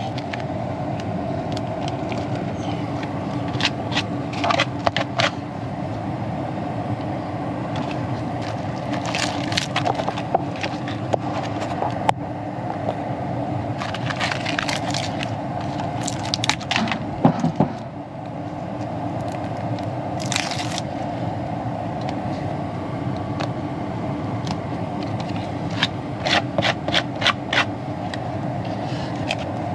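Foil-backed Hardcast duct tape crinkling and crackling in scattered bursts as it is handled, peeled and pressed onto the furnace's sheet-metal cabinet, over a steady hum.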